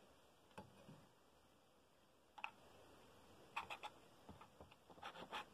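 Near silence broken by a few faint, short clicks and taps, most of them in two quick clusters in the second half.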